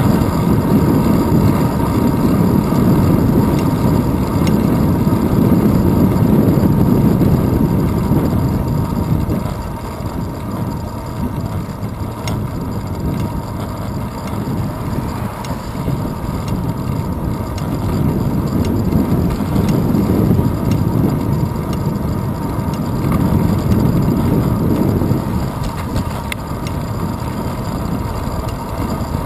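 Wind and road rumble picked up by a handlebar-mounted GoPro Hero 2 on a moving road bicycle: a steady low rushing. It eases about a third of the way in and swells again later.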